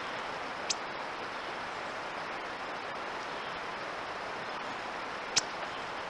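Steady hiss of outdoor ambience through a trail camera's microphone, with two brief, sharp high ticks, one about a second in and a louder one near the end.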